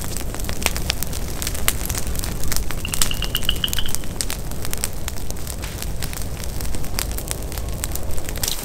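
Dead grass and brush burning in a freshly lit line of a prescribed burn, crackling and popping irregularly over a steady low rumble. A bird sings one short trill about three seconds in.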